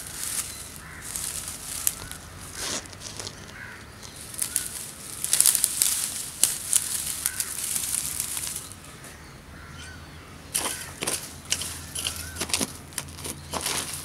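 Dry twigs and straw mulch rustling and crackling in irregular bursts as they are pulled off a soil mound by hand, busiest around the middle.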